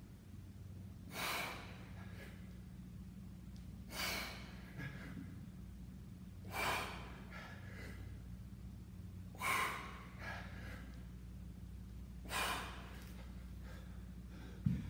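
A man breathing hard under exertion: a forceful exhale about every two and a half to three seconds, five in all, in time with kettlebell goblet squats, over a steady low hum. A short low thump near the end as the kettlebell is set down.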